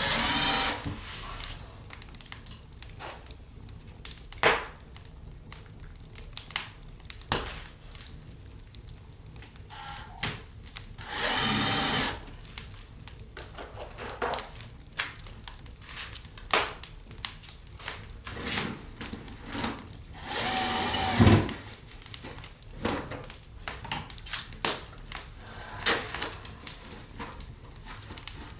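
A power drill-driver running in three short bursts of about a second each: one at the start, one about eleven seconds in and one about twenty seconds in. Scattered knocks and clicks fall in between.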